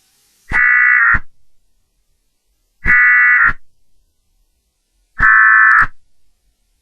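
Three short, harsh digital data bursts about two and a half seconds apart, each starting and stopping abruptly: the EAS-style end-of-message tones that close an emergency alert broadcast.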